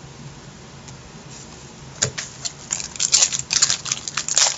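Crinkling and rustling of a trading-card pack wrapper being handled: a quick, irregular run of sharp crackles that starts about halfway in after a couple of seconds of quiet room tone.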